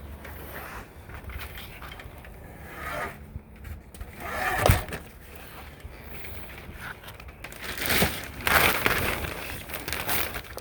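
Old rubber screen spline being pried and pulled out of a screen-door frame's channel: irregular scraping and crackling, with one sharp knock about halfway through.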